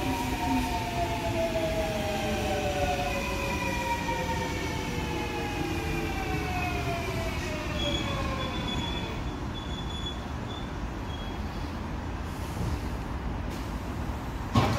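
Electric commuter train braking into the station: the traction motors' inverter whine, several tones together, falls steadily in pitch for about nine seconds as the train slows, over the rumble of the wheels. It then settles to a steady low rumble as the train stops, with a sudden sharp sound near the end.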